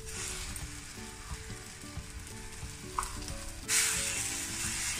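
Amla (Indian gooseberry) paste frying in ghee in a pan, sizzling as jaggery is tipped in and stirred with a spatula. The sizzle gets suddenly louder a little before the end.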